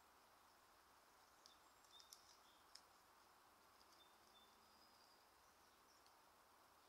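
Near silence: a faint steady hiss, with a few faint short ticks about one and a half to three seconds in.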